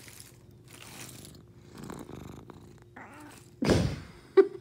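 Domestic cat purring steadily while being petted up close, with rustles of fur and hand rubbing near the microphone. The loudest rustle comes about three and a half seconds in. Two short pitched sounds follow near the end.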